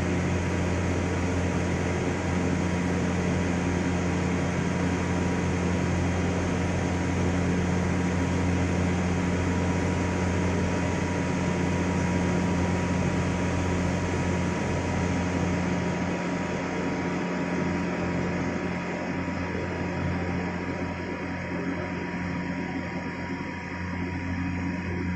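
Steady electrical hum and drone of powered machine-shop equipment, with a thin constant whine above it, easing off a little near the end.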